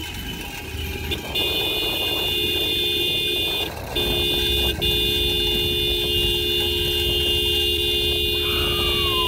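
A vehicle horn held down in long steady blasts from about a second and a half in, breaking off briefly twice around four to five seconds, over a constant low rumble.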